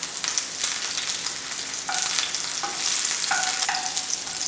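Chopped green chillies sizzling in hot oil in a pan as they are stirred. From about two seconds in, the utensil scrapes the pan a few times with short squeaky tones.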